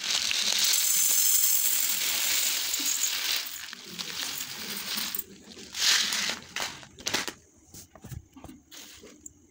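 Raw India Gate basmati rice poured from a packet onto a stainless steel plate: a dense hissing patter of grains striking metal for the first three seconds or so, fading away. A louder short spill follows near the middle, then scattered ticks of single grains as the rice settles.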